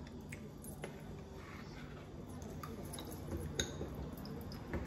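Eating sounds: scattered wet mouth smacks and small clicks of spoons on gelato cups, over a faint low hum.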